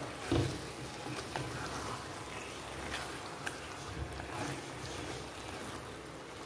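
Wooden spatula stirring thick chicken chukka masala in a heavy pot, with irregular scrapes and light knocks over a soft sizzle of the oil frying underneath.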